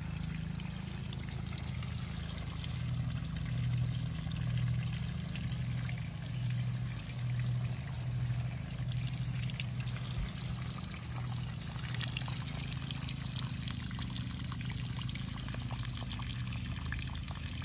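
Water trickling and spraying from holes drilled in a PVC irrigation pipe onto garden plants and soil, with a steady low hum underneath that swells and fades.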